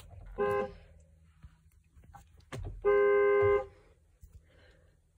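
Dodge Grand Caravan horn sounding twice: a short toot just after the start, then a longer, louder blast of under a second about three seconds in.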